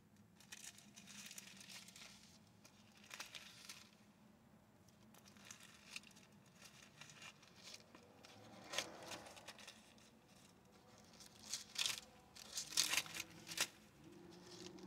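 Thin Bible pages being leafed through, rustling and crinkling in irregular bursts, loudest about three-quarters of the way in.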